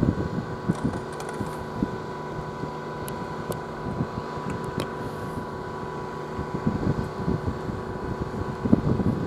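ČD class 163 electric locomotive standing at the head of its train with its equipment running, a steady hum with a high tone held throughout. Wind rumbles irregularly on the microphone beneath it.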